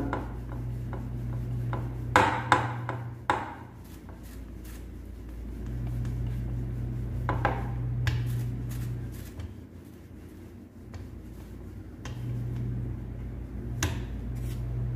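Wooden rolling pin rubbing and rolling over a potato-stuffed paratha on a round rolling board, with a few sharp knocks of the pin against the board, several about two to three seconds in, one near halfway and one near the end. A steady low hum comes and goes underneath.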